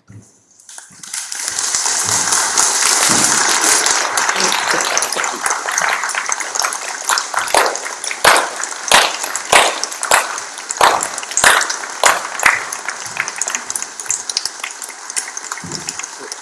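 Audience clapping and cheering, a dense patter of applause that thins out to scattered loud individual claps in the second half.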